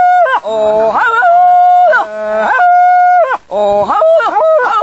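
Two men howling at each other like dogs, taking turns with long, high held howls that slide down at the end. Near the end they break into quicker, wavering howls.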